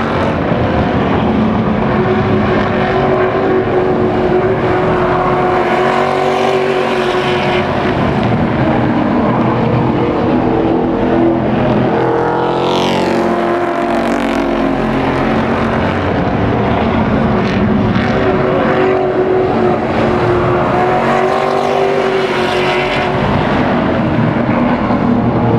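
Engines of a field of race trucks running laps together, a steady loud din that swells as trucks pass; about halfway through one truck goes by close and its engine note drops in pitch.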